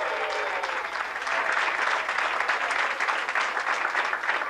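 A crowd applauding steadily, with a few voices calling out at the start.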